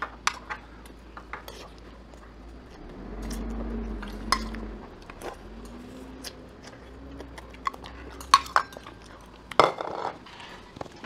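Cutlery clinking and tapping against plates and bowls at a meal table: scattered light clinks throughout, with a louder clatter near the end.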